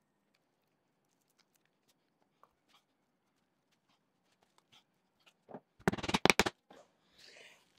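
Faint clicks of wooden rings being handled and set into a board, then a quick run of about half a dozen wooden mallet taps about six seconds in, seating the glued rings and centre disc into a square wooden chopping board. A brief soft scuff follows near the end.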